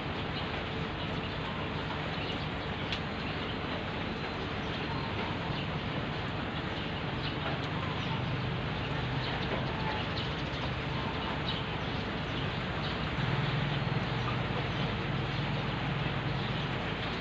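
Steady rain falling on a wet gravel road and tropical foliage, an even hiss. A low rumble builds in the second half and is loudest a few seconds before the end.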